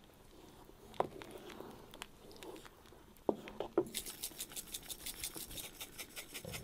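A few light knocks, then, from about four seconds in, a spice shaker shaken over a pot of soup in a steady rhythm of about five quick rattles a second.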